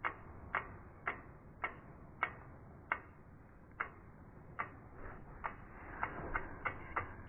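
Ticking clicks of a logo-animation sound effect, about two a second, coming faster in the last second or so, over a faint swell that grows toward the end.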